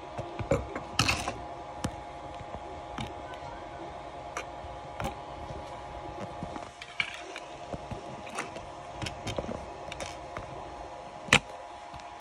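Scattered clicks, taps and knocks of a TOYBOX 3D printer's housing and parts being handled. There is a cluster of louder clicks about a second in and a sharp click near the end, over a steady background hum.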